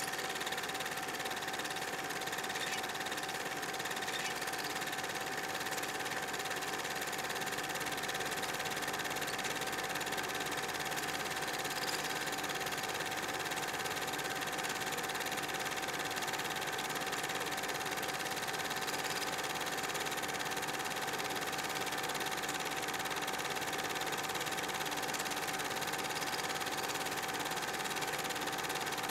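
Film projector running: a steady mechanical whirr with a constant mid-pitched hum.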